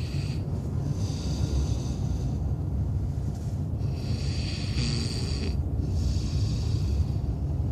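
A man snoring in a steady rhythm, four drawn-out snores about every two to three seconds, over the steady low rumble inside a van.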